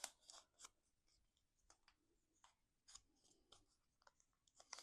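Faint, scattered paper rustles and ticks of vellum-backed cardstock panels being curled between the fingers.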